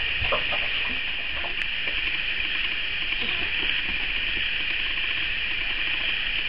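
A steady hiss with faint, short squeaks from newborn Dalmatian puppies, mostly in the first second or so and again briefly around the middle.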